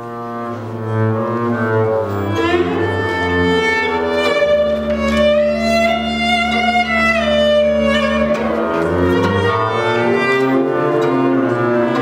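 Slow music on bowed strings, cello-like, in long held notes, with one long sustained note through the middle.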